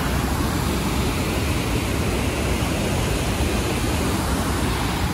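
Water rushing and churning out of an open dam gate: a steady, loud rushing noise that cuts off suddenly at the end.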